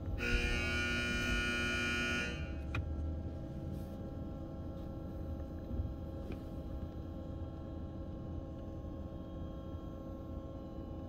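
Steady mechanical hum of automatic car wash equipment, heard from inside the car's cabin. A louder, higher buzzing tone sits on top for the first two seconds or so, then cuts off.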